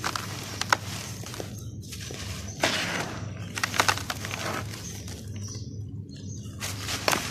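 Moulded clumps of dry red dirt crushed and crumbled by hand, the grains pouring back into a plastic tub: gritty crunching and sifting hiss with sharp crackles, in three bouts with short pauses between.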